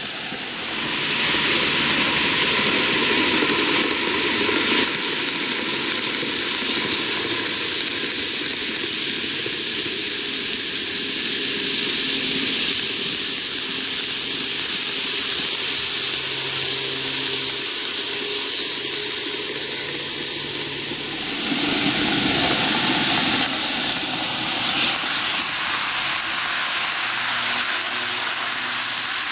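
N-gauge model Keihan electric train running on canted curved track: a steady rattle of wheels on the rails with motor hum. It grows louder about a second in as the cars come close, and again about 22 seconds in.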